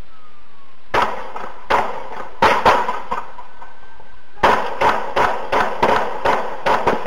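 A rapid series of about a dozen gunshots in two volleys: the first starts about a second in, the second about four and a half seconds in, each shot ringing on briefly.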